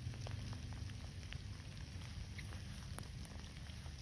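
Light rain falling, with scattered faint drop ticks over a steady low rumble.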